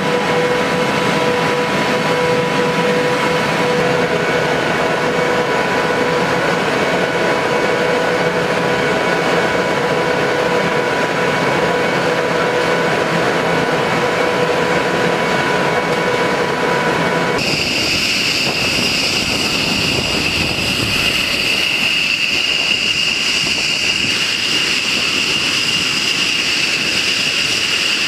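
Steady jet-turbine whine with a noisy rush underneath; about two-thirds of the way in it changes abruptly to a higher-pitched whine of jet engines running.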